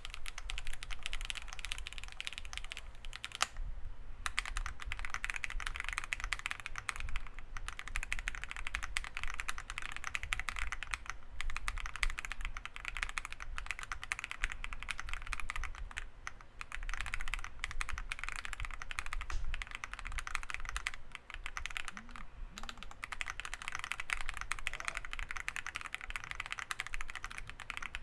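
Steady typing on a WEIKAV Record mechanical keyboard in a CNC aluminium case, with factory-lubed Akko Cream Black Pro linear switches, a polycarbonate plate and Akko PBT keycaps. The keystrokes come fast and continuous, with a few short pauses.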